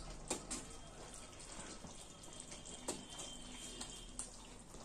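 A steel ladle stirring and lifting through thick, simmering curry gravy in a kadai, a soft wet sloshing, with a few light clicks of the ladle against the pan.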